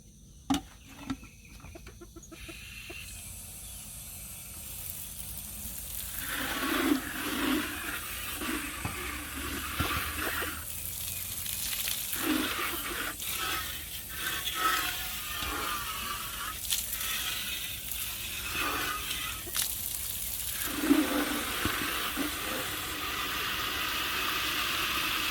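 Water running into a chick waterer as it is filled: a steady rush that starts a few seconds in and slowly grows louder. Chickens cluck now and then over it.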